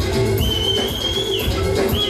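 Live band music with a steady drum beat and a high, wavering whistle-like tone held about half a second in and again near the end.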